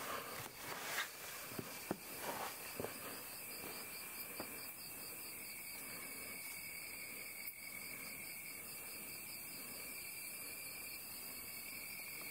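Insects trilling in a steady, high-pitched drone, with a few light knocks in the first three seconds.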